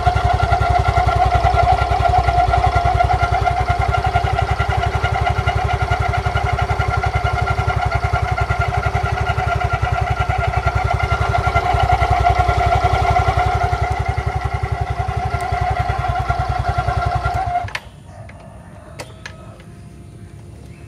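Yamaha Mio Fino 125 scooter's single-cylinder engine running on its stand, with a steady high whine from the CVT over the engine's rapid low pulsing. The whine is one of the strange CVT noises the owner complains of, which his mechanic later traced to the front CVT pulley. The sound stops abruptly near the end.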